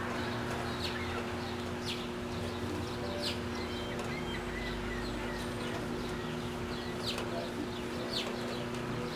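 Ducklings peeping: several short, high calls that fall in pitch, a second or two apart, over a steady low hum.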